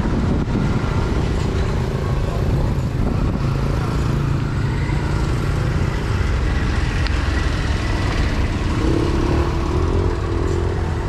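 Street traffic: engines of passing vehicles, likely motorbikes, running steadily over a busy street din.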